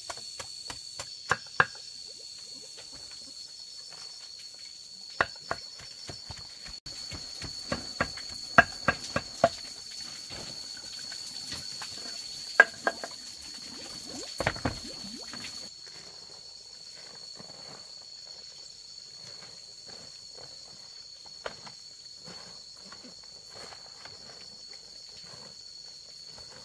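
Steady high-pitched insect drone with irregular sharp clicks and knocks of handwork, busiest in the first half, and one dull thud about halfway.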